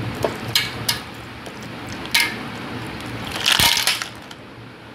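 Ice cubes knocked out of a plastic ice tray and dropping into a stainless steel bowl: a few separate clinks, then a louder clatter of several cubes about three and a half seconds in.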